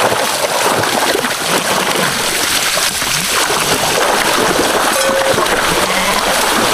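Sheep plunging and wading through water in a narrow concrete channel as they are washed, with steady splashing and sloshing of churned water.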